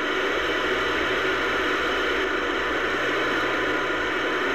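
CB radio receiver hissing with steady static between transmissions, a band-limited rushing noise from the radio's speaker.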